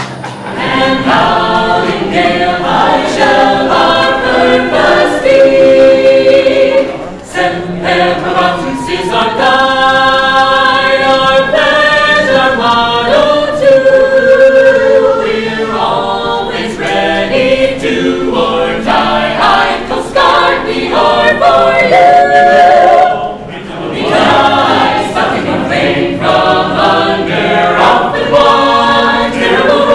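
An a cappella choir singing in harmony, with several voices and no instruments, pausing briefly between phrases.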